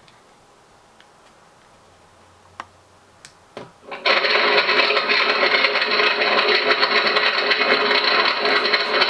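Indoor training fire simulator playing its recorded fire noise through its loudspeaker, switched on suddenly about four seconds in and then going on loud and even. A few faint clicks come before it.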